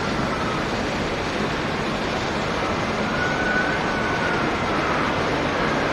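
Jet aircraft engine noise at an airport: a steady rush with a faint, slightly wavering turbine whine.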